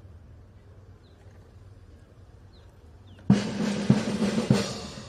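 A few faint bird chirps over quiet open-air background, then about three seconds in a parade band's drums strike up suddenly and loudly, with a bass drum beating about every 0.6 s under the snare.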